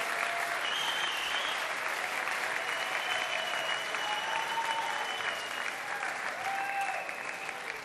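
Audience applauding in a hall, dying away near the end.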